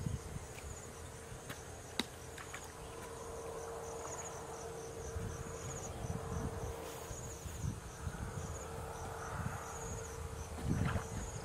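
Insects chirping in the countryside: a steady high-pitched chorus with rapid, evenly repeating chirps, over a low rumble of wind on the microphone.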